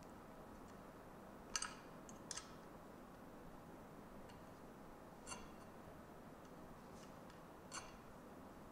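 A few faint metallic clicks, spaced a few seconds apart in near silence, as an Allen wrench and screw are worked loose from a 3D printer's print bed. The loudest is a quick double click about one and a half seconds in.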